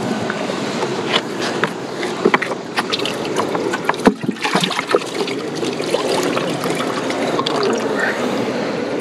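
Water splashing and trickling in a bass boat's livewell as fish are handled and lifted out. Scattered clicks and knocks come from the hatch lids and latches, the loudest about four seconds in.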